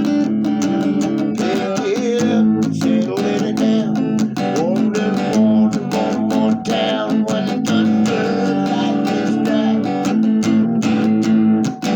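Guitar music: a strummed guitar keeping a steady rhythm.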